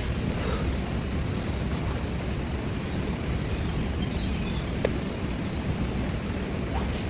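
Steady heavy rain falling, an even rushing hiss, with one sharper tap about five seconds in.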